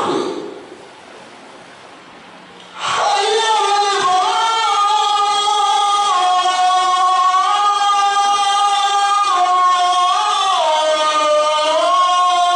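A voice chanting or singing in long held notes that step up and down in pitch, with a falling glide near the end. It comes in suddenly about three seconds in, after a stretch of low hiss.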